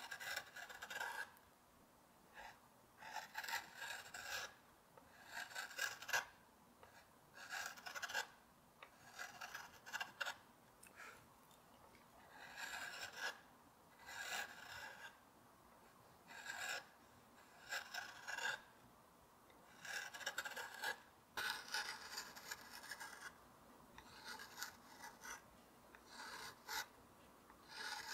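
Carving gouge cutting walnut by hand: a series of short scraping strokes, one roughly every one to two seconds, each cut lifting a curled shaving.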